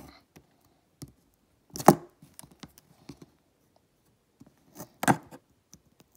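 Scissors working at the edge of a jersey trading card: scattered small clicks and scrapes of the blade against the card, with two louder sharp clacks about two seconds in and about five seconds in.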